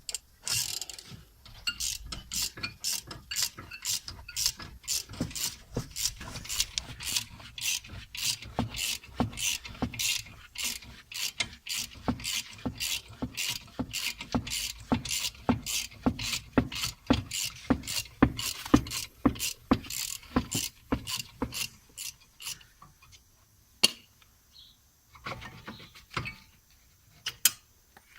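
Hand ratchet wrench clicking in a steady run of strokes, about two to three clicks a second, as a bolt is turned. It stops about three-quarters of the way through, leaving a few scattered clicks.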